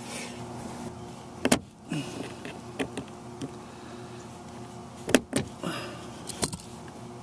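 Sharp clicks and knocks from tugging and prying at a rear-window defroster wire connector that will not come off. The loudest snaps come about a second and a half in and again about five seconds in, with lighter ticks between, over a faint steady hum.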